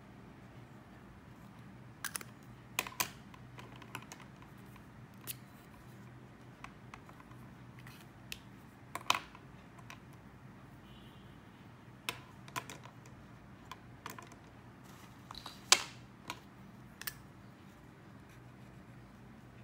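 Irregular light ticks and short scratches of a Lamy Safari fountain pen's extra-fine nib on sketchbook paper and of paper being handled, scattered through most of the stretch over a faint steady low hum.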